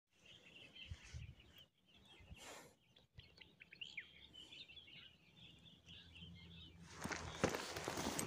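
Faint outdoor ambience with scattered short bird chirps and calls. Near the end, a stretch of rustling and handling noise close to the microphone.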